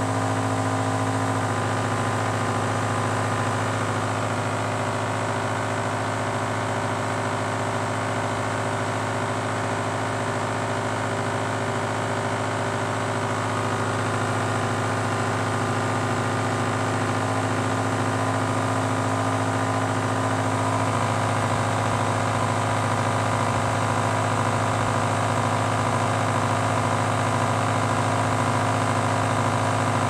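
Microwave oven cooling-fan motor running on the bench: a steady electrical hum with a whir. Its tone changes slightly about a second in and again about twenty seconds in.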